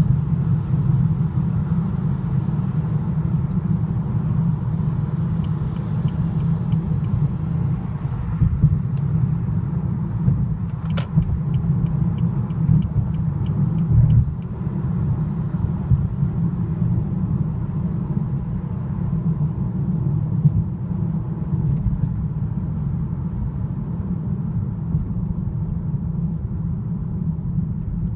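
Steady low rumble of a BMW 328i F30 heard from inside the car, with a sharp click partway through and a few seconds of faint, light ticking around it. The ticking is the metallic rattle that started in the car's first month and that the dealer failed to repair.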